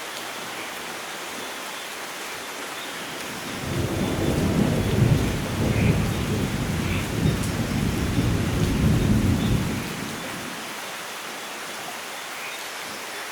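Steady light rain with a low rumble of thunder that swells about four seconds in and dies away after about ten seconds.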